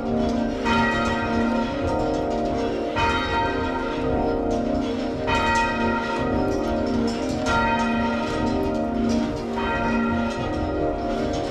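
Church bells rung in changes, fully muffled so that most strokes sound dull and blurred. The tenor is left open at backstroke, so one clear, ringing stroke stands out about every two seconds: the customary mourning arrangement for a funeral.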